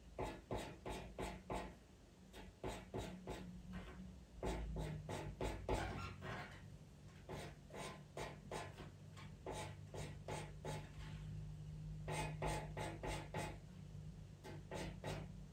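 Pastel pencil scratching across Pastelmat paper in runs of quick, short strokes, about three or four a second, as fur is flicked in. There are brief pauses between the runs.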